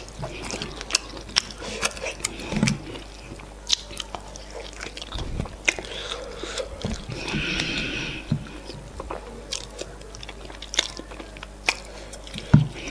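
Close-miked chewing of soft semolina fufu and efo riro stew: wet lip smacks and sharp mouth clicks, over and over.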